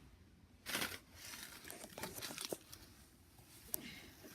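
Slime being handled and squished by hand, giving irregular crackling noises with a louder rustle about a second in and a sharp click near the end.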